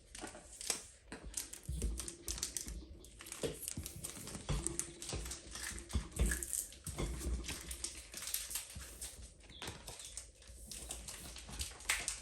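Irregular clicks, taps and light rustles of cardboard and trading cards being handled and set down on a table, with a few dull thumps.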